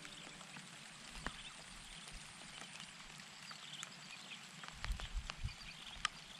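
Faint outdoor ambience: a light hiss with scattered small ticks and chirps, and a few low thuds about five seconds in.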